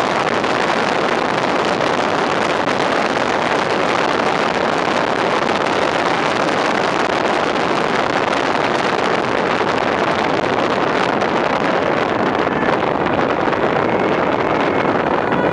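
Steady rush of wind on a microphone held out of the cab of a moving fire engine, over the noise of the truck and its tyres on the road. There is no siren.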